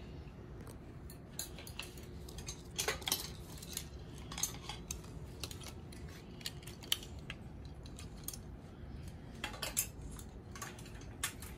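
Clothes hangers clicking and scraping against a metal clothing rail as garments are moved and lifted off, in scattered sharp clinks that bunch together about three seconds in and again near the end.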